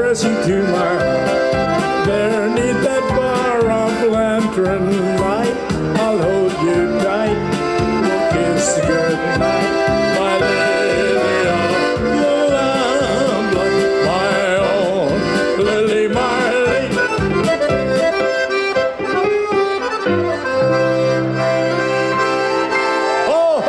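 Accordion playing a lively instrumental tune over a keyboard backing with a steady beat. About 20 seconds in, the beat stops and a chord is held.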